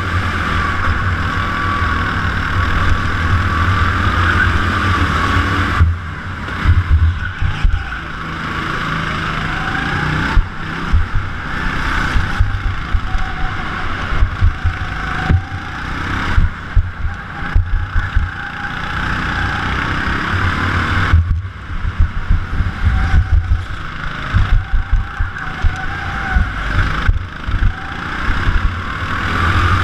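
Go-kart motor heard from on board during a fast lap. Its pitch climbs along the straights and drops off sharply about five times as the driver lifts for the corners. A low rumble runs underneath.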